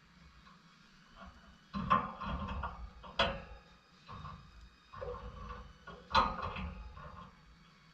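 Pet lovebirds moving about, making a series of about five short knocks and rustles, some with sharp starts, separated by quiet gaps.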